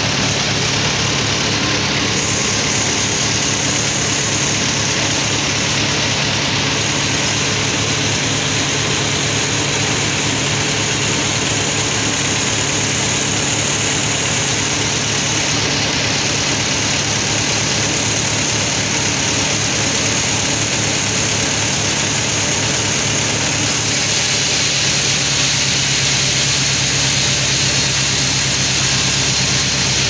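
Band sawmill running steadily while its blade cuts lengthwise through a large albasia log on the carriage: a dense, continuous machine noise over a steady low hum. The higher part of the sound shifts slightly about three-quarters of the way through.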